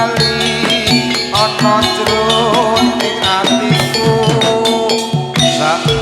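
Javanese gamelan music accompanying a jathilan dance: struck metallophones holding steady notes over a busy run of drum strokes, with a wavering melodic line a little over a second in.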